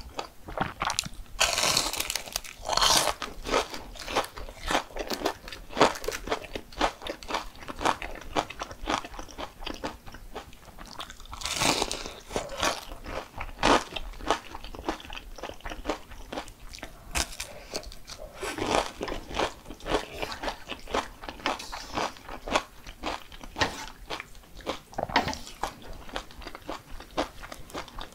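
Close-miked eating: crisp crunching bites and chewing on fried or crunchy food, a dense run of sharp crackles with a few louder bursts.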